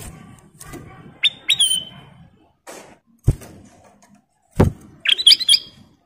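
Ruby-throated bulbul (kutilang emas) in a bamboo cage giving short whistled chirps: two rising notes about a second in and a quick cluster near the end. Several sharp thumps come from the bird hopping about the cage, the loudest about three and four and a half seconds in.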